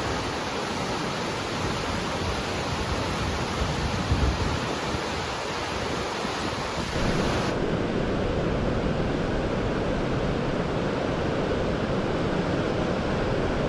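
Storm surf rushing, a steady roar of breaking waves with wind noise on the microphone. About seven seconds in, the rush becomes fuller and lower.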